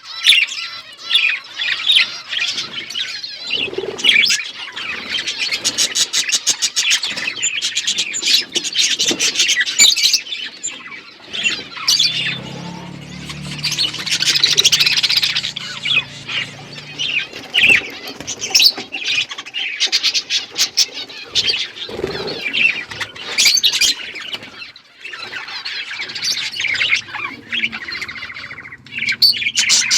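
A flock of budgerigars chirping and chattering without pause, many short, quick calls overlapping.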